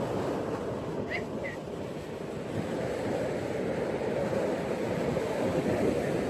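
Ocean waves washing onto a beach in a steady, rolling wash, with two brief high chirps about a second in.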